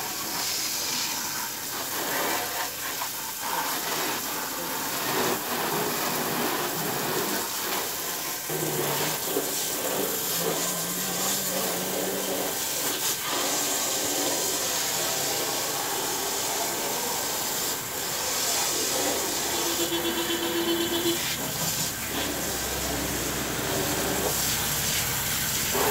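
Garden hose spray nozzle spraying water onto a car's bodywork and wheel: a steady hiss of the spray with water spattering off the metal.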